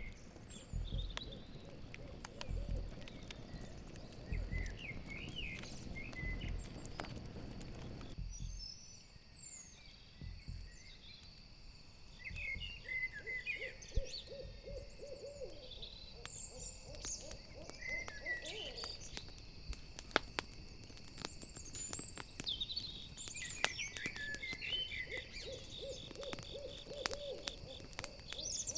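Owl hooting in runs of rapid low notes, several times, over a steady chorus of crickets and the sharp crackle of a campfire. Low thumps come in the first several seconds.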